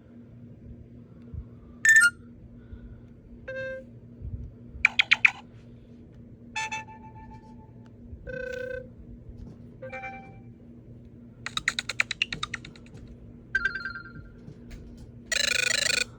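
A run of about nine short Android 4.0.4 (Ice Cream Sandwich) notification sounds played one after another, a second or two apart. Each is a different brief chime, blip or jingle.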